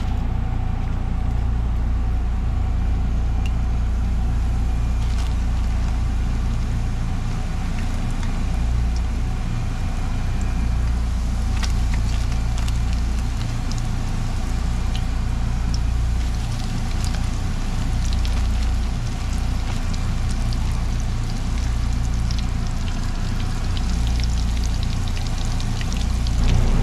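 Battered catfish frying in hot grease: a steady sizzle with fine crackles that grow denser after about ten seconds, over a steady low rumble.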